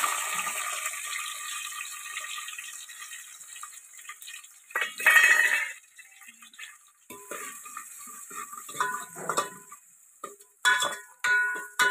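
Chopped onion sizzling in hot oil in an aluminium pot over a wood fire, the sizzle dying away over the first few seconds. Then a steel spoon stirring, scraping and clinking against the pot, with several ringing knocks near the end.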